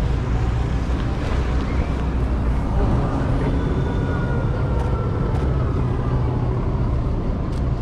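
Steady low rumble of city traffic on a wet road, with a faint sliding vehicle whine in the middle and a few light clicks.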